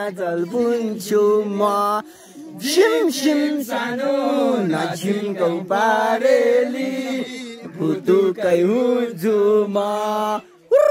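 A man singing a Nepali song unaccompanied, holding and bending long notes. He pauses briefly about two seconds in and again just before the end.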